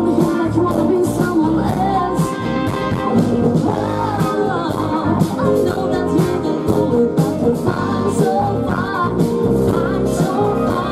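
Live rock band playing a song: a woman singing over electric guitars, drum kit and keyboard.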